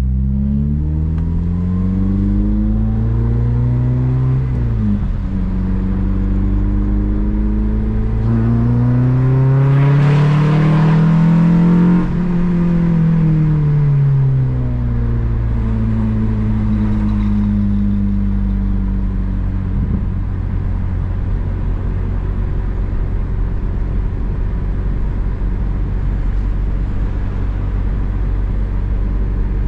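Honda Civic Si engine accelerating through the gears. The revs climb, drop sharply about four seconds in at a gear change, then climb again to a high-revving peak around ten to twelve seconds in. After that the revs fall away and the engine runs at a steady, lower speed for the rest.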